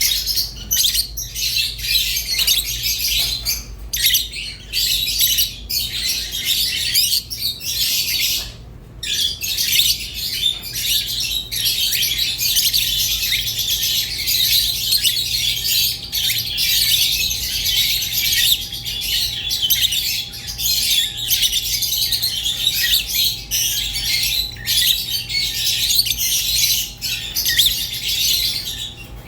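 Rosy-faced and Fischer's lovebirds chattering and chirping without a break, a dense high-pitched stream of calls with squawks mixed in. A faint steady low hum runs underneath.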